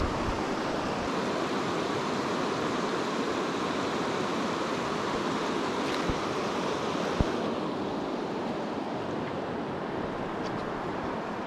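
Shallow mountain stream rushing over a rocky, boulder-strewn bed: a steady rush of water. There are a couple of brief knocks about halfway through, and the hiss softens slightly after that.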